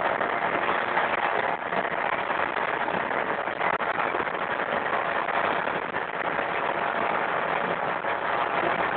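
Heavy diesel construction machinery running steadily on a concrete pour: a dense, constant mechanical noise with no pauses or distinct beats.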